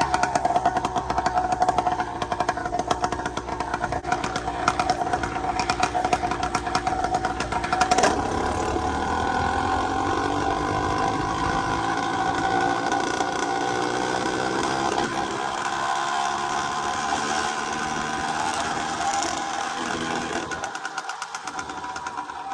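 Minarelli two-stroke engine of a motorized bicycle running under way, its pitch shifting a little with throttle. The Mikuni VM20 carburettor has just been down-jetted from a 140 to a 135 main jet. A single sharp click comes about eight seconds in.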